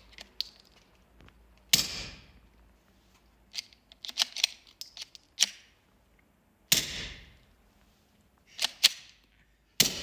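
Glock Gen 5 pistol firing through a suppressor: three loud sharp reports, about two seconds in, near the middle and near the end, each with a short echoing tail, with quicker, lighter cracks between them.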